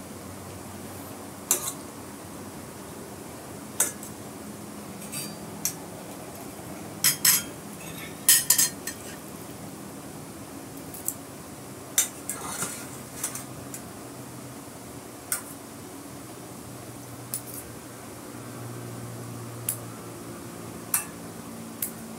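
Metal utensils and a mesh strainer clinking against a glass plate as boiled instant noodles are tipped out and spread: scattered sharp clinks, with a quick cluster of the loudest about a third of the way in, over a steady low hum.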